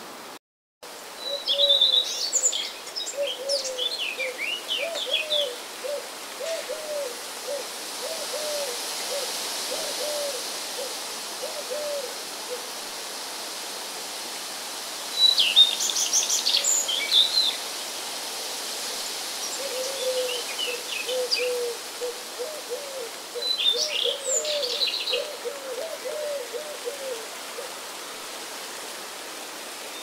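Birds calling outdoors: several short runs of high chirping song, over a lower bird call repeated as long runs of quick hooting notes, with a steady hiss behind. The sound cuts out for a moment just after the start.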